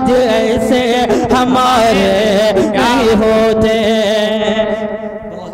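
A man's voice singing the closing line of a naat (Urdu devotional poem) through a public-address system, the long held notes fading away in the last second or so.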